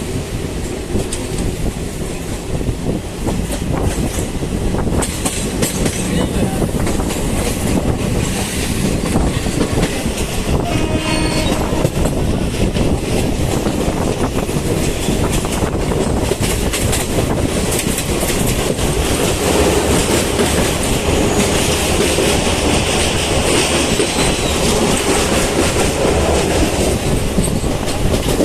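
Krishna Express passenger train running along the line, its wheels clattering over the rail joints in a continuous clickety-clack.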